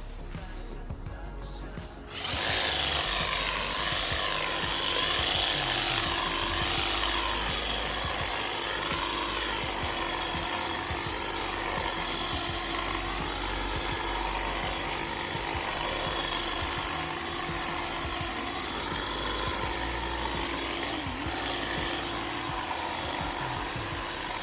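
A motorised garden power tool starts up about two seconds in and then runs steadily under load, its pitch dipping briefly near the end.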